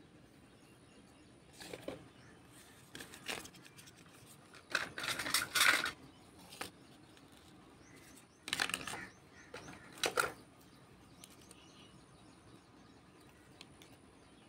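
Small plastic toys being handled and set down on a hard surface: a plastic basket and a squishy toy of grapes, heard as several short bursts of handling noise, the loudest about five seconds in.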